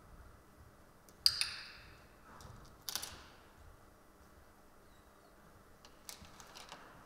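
A training clicker clicks once with a short metallic ring, the marker signal for the learner's correct move. A second sharp clack follows about a second and a half later, and near the end come several light clicks of plastic buttons being handled on the tabletop.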